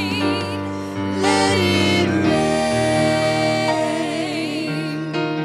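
Live church worship band playing slow music: sustained chords under a singer holding long, wavering notes.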